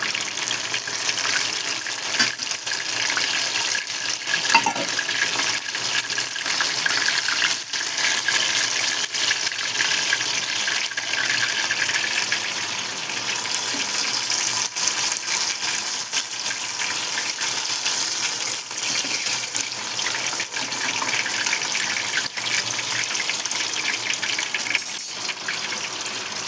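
Chicken lollipops deep-frying in hot oil: a steady sizzle with scattered crackles and pops.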